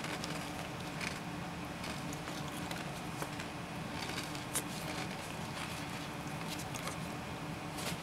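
Small crumbly cookie being chewed: faint scattered crunches and clicks over a steady low hum.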